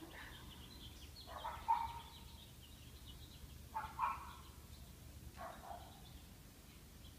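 Faint short animal calls, four of them a second or two apart.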